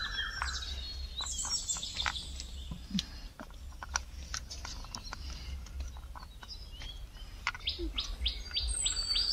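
Small birds chirping, with a quicker run of chirps near the end, over light clicks of shelled peanuts being handled in a steel plate.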